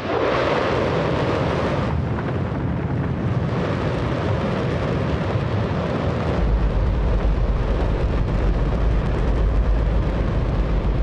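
Hydrogen-oxygen rocket engine firing on a test stand: a loud, steady roar that starts abruptly, its deep rumble growing heavier about six seconds in.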